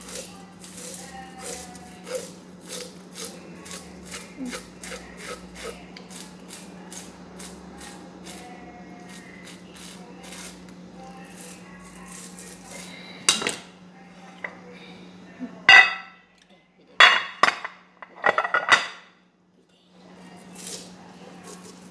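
Knife blade scraping the scales off a whole salmon, quick repeated strokes at about two or three a second. In the second half come several louder scrapes with short pauses between them, over a faint steady hum.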